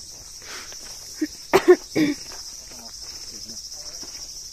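Steady, high-pitched chorus of insects shrilling, with a short burst of a person's voice about a second and a half in.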